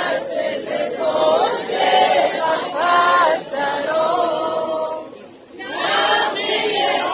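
A large crowd singing together, many voices at once, with a short break about five seconds in before the singing picks up again.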